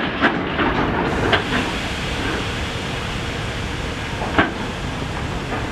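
Steady hissing noise of a passenger train standing at the platform, with a few sharp knocks: one at the start and another about four seconds in.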